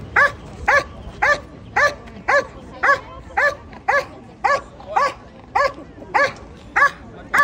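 Belgian Malinois police dog barking on the leash in a steady, even run of sharp barks, about two a second.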